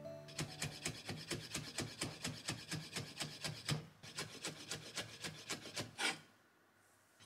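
Kitchen knife finely shredding yuzu peel on a wooden cutting board: quick, even cuts about five a second, each blade stroke knocking on the board. It ends about six seconds in with one louder stroke.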